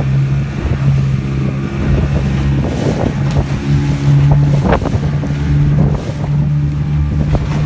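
Small boat's outboard motor running steadily at speed, a constant drone, with wind buffeting the microphone and water rushing past the hull. A couple of short knocks or splashes about three and five seconds in.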